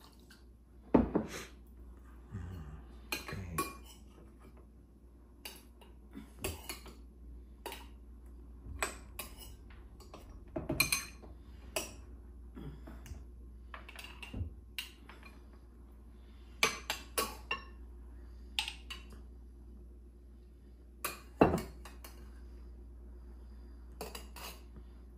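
A metal spoon clinking and knocking against ceramic bowls and glass jars as food is spooned from bowls into jars: scattered sharp clinks at irregular intervals, with short gaps between them.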